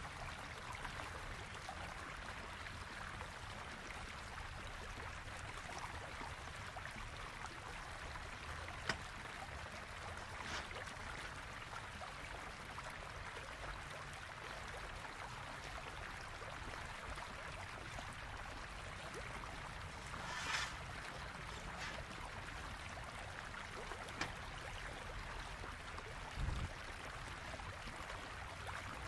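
Steady rushing of a nearby water stream, with a few brief knocks of things being handled on the table.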